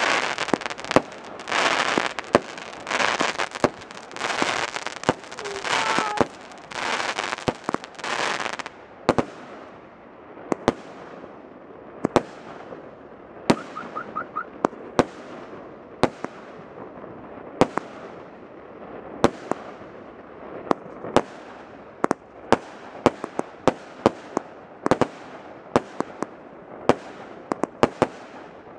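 Fireworks going off in quick succession. For the first nine seconds there are bursts of crackling hiss about once a second. After that come sharp bangs, one or two a second, each with a short echoing tail.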